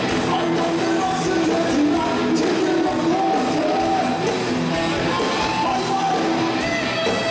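Live rock band playing with a man singing lead into a microphone, amplified through the PA.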